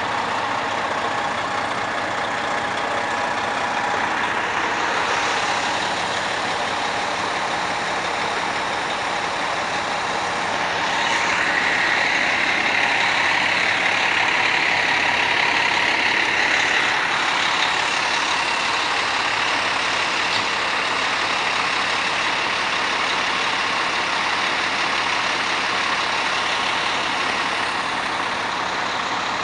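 Fire trucks' diesel engines running steadily at a fire scene, swelling louder for several seconds in the middle.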